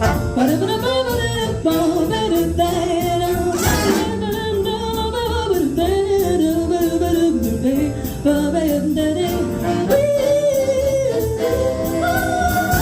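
Big band playing a jazz standard live, with a bending lead melody line over the horns and a rhythm section keeping a steady beat.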